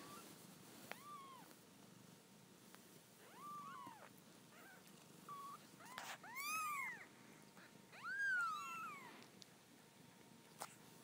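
Newborn kittens mewing in short, high-pitched calls, about six of them, the loudest about six and eight seconds in. A couple of brief clicks are also heard.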